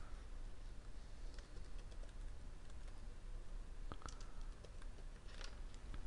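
Faint typing on a computer keyboard: a scattering of separate keystrokes over a steady low hum.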